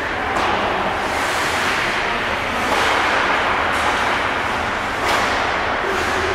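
Ice hockey play: a steady hiss of skate blades scraping the ice, with a few sharp clacks of sticks striking the puck.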